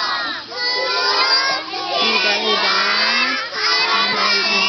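A group of young children singing a song together, half-shouting it, in short phrases with brief breaks between them.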